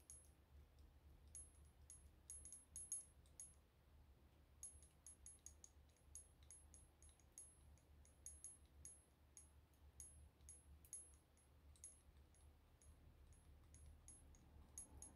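Faint, irregular clicking of a lock pick working inside a round steel padlock that is not yet opening.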